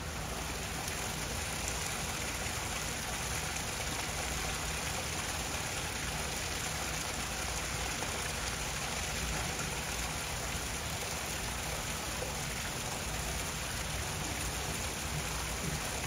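Steady hiss of water splashing and running into a pond, an even rushing noise with no distinct events.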